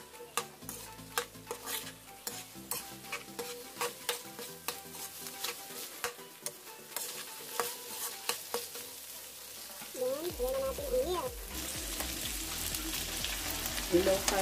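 Metal spatula scraping and clicking against a wok as chopped luncheon meat and tuna are stirred and fried, with a low sizzle underneath. Near the end the sizzle grows louder as milk is poured into the hot wok.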